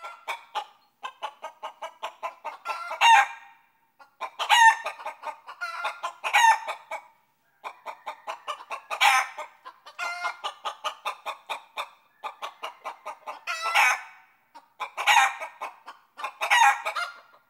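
Chicken clucking: about eight phrases of quick clucks, each building to a louder squawk.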